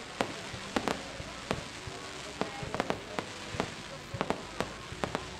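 Fireworks display going off: an irregular string of a dozen or more sharp bangs and crackles.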